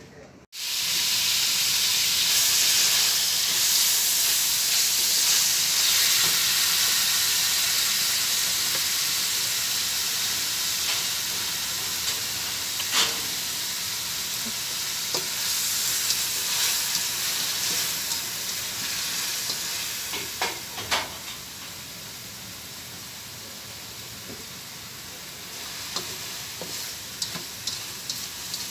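Ground pork, onion and tomatoes sautéing in oil in a wok, a steady sizzle that starts abruptly and slowly eases off. A slotted spatula scrapes and clicks against the wok as the mix is stirred, with a few sharper clicks about two thirds of the way through.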